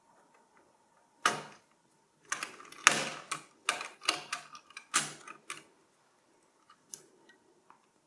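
Metal clicks and scrapes of an LGA 1151 CPU socket's load plate and retention lever being lowered and latched over an Intel Core i5-6500. A run of sharp clicks and knocks lasts about four seconds, followed by a few faint ticks.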